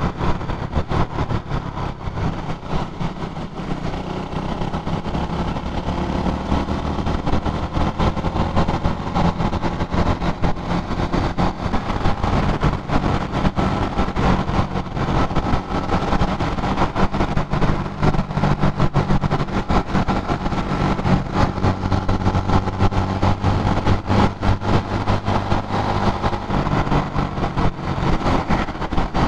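Honda motorcycle engine running under way while riding, its pitch rising and falling slowly with the throttle, over a steady rush of wind and road noise.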